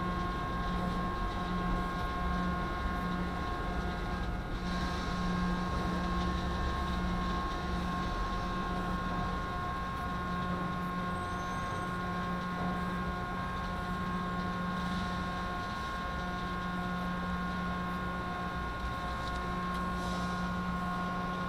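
Steady drone of a heavy vehicle's engine running, with a constant high-pitched whine and a low hum that comes and goes every second or two.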